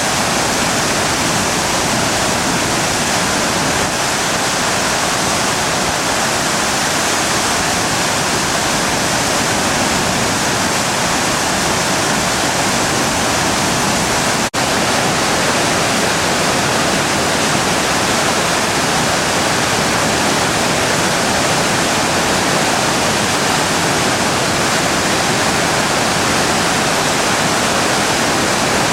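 The Driva river in a 50-year flood: the loud, steady rush of a huge volume of fast-flowing floodwater, broken by an instant's gap about halfway through.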